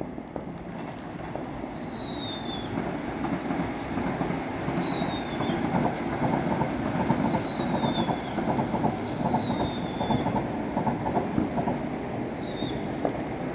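A steady rumble that swells through the middle, with a fast rattling clatter and a high squeal sliding down in pitch five times.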